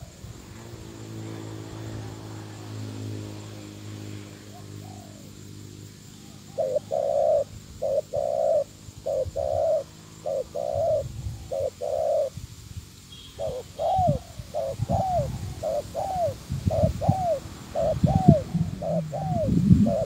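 Spotted dove cooing: after a quiet start, a series of short, even coo notes at about one and a half a second, changing just past the middle to a quicker run of rising-and-falling coos.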